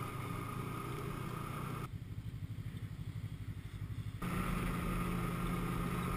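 Snowmobile engine running as it rides along a snowy trail, heard from the rider's seat. The sound changes abruptly about two seconds in to a duller, throbbing hum, and again just after four seconds back to a steadier, brighter hum.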